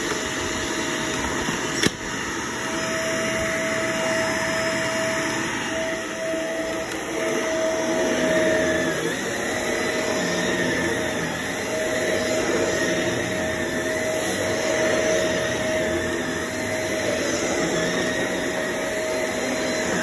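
Shark upright vacuum cleaner running on carpet as it is pushed along, a steady motor noise with a steady tone through it. A single sharp knock about two seconds in is the loudest moment.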